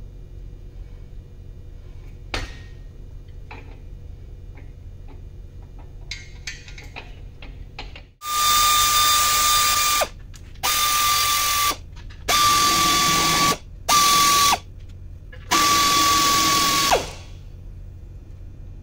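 Pneumatic air ratchet run in five bursts of one to two seconds, a steady whine over a strong hiss of air, spinning out the oil pan bolts on an engine block. Before it, light clicks and tool handling.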